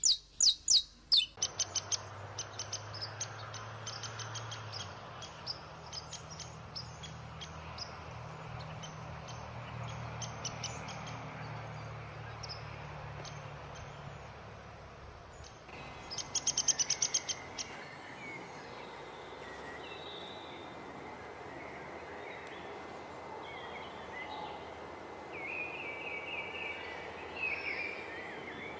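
Wild birds chirping and singing: a few loud sharp chirps at the start, a quick run of short repeated notes, another rapid burst of chirps about halfway through, and warbling notes near the end, over a steady background hiss of outdoor ambience.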